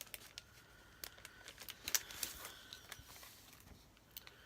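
Faint rustling and scattered light clicks of plastic planner pockets being handled.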